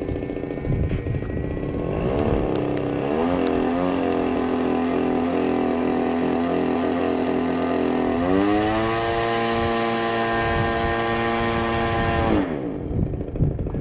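Radio-control model airplane engine running loud and steady, throttled up in two steps, holding each speed for several seconds. Near the end its pitch drops sharply and the engine note dies away.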